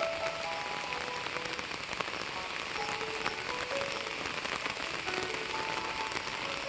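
Slow background music of single held notes in a simple melody, over a steady rain-like hiss with fine pattering ticks.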